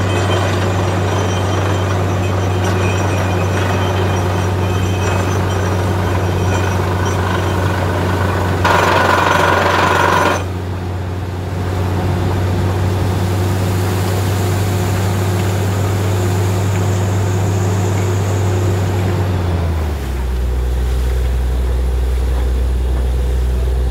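Truck-mounted borewell drilling rig running steadily under load as it drills, with a loud burst of hissing lasting under two seconds about nine seconds in. Near the end the rig's low hum drops in pitch as the engine slows.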